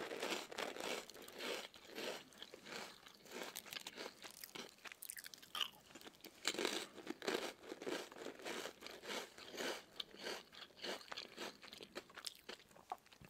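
Close-miked chewing of crisp purple sweet potato and potato chips: a dense, irregular run of crunches that keeps going.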